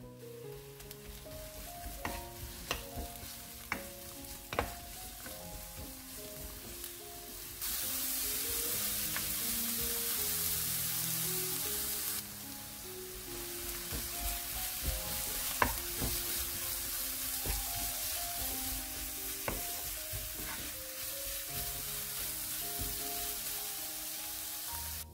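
Sliced onion, green onion and minced garlic sizzling in oil in a nonstick wok while being stirred with a wooden spoon, which knocks against the pan a handful of times. The sizzling gets louder for about four seconds in the first half, then settles back.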